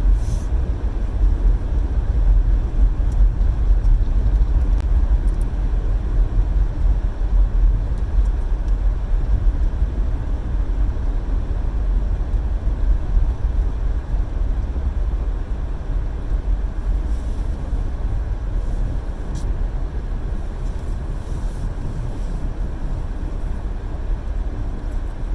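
Steady low rumble of a car's cabin while driving: engine and road noise with no breaks.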